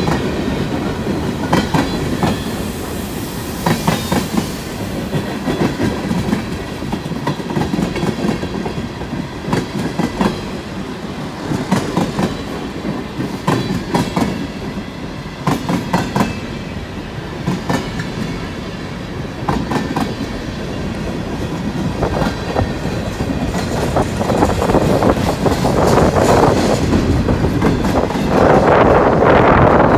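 Freight train of hopper cars rolling past at a grade crossing: steel wheels clacking over rail joints and the crossing above a steady rumble of the cars. It grows louder over the last few seconds.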